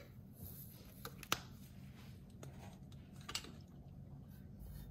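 Seasoning shaker sprinkling garlic parmesan seasoning over raw potato pieces in a cast iron Dutch oven: faint soft tapping with a sharper click a little over a second in and another past three seconds.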